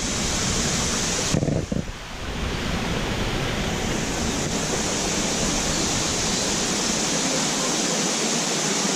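A steady rushing hiss, briefly broken about a second and a half in by a few low knocks.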